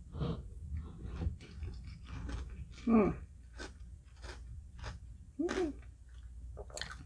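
Close-miked mouth sounds of someone chewing a spoonful of halo-halo with tapioca balls: many wet clicks and smacks. There are two short voiced sounds, the louder about three seconds in and another about two and a half seconds later.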